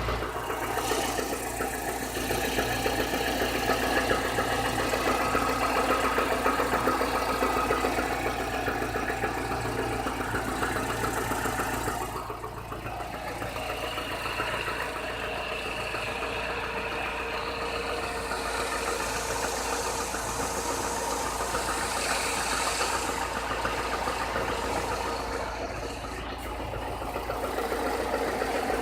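Chevrolet Niva four-cylinder petrol engine running steadily with a knock from inside the engine, which the owner says is clearly getting worse and whose origin he does not know.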